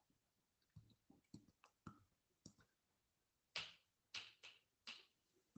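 Near silence broken by a scatter of short, faint clicks, with a few slightly louder ones clustered between about three and a half and five seconds in.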